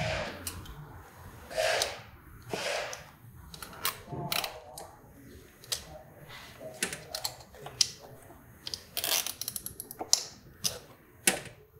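Irregular clicks, taps and short scrapes as a pressed-aluminium radiator guard is worked into place against a motorcycle's radiator by hand.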